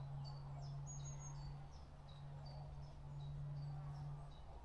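Faint outdoor chirping of small birds: short, high, falling notes several times a second, over a steady low hum that dips out briefly near the end.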